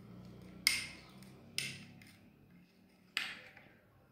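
Metal spoon clinking against a glass cup while stirring a powdered drink mix into water, three distinct clinks with a short ringing tail.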